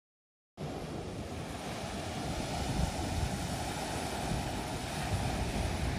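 Small waves washing onto a sandy beach, with wind buffeting the microphone in a steady low rumble. The sound cuts in abruptly about half a second in, after digital silence.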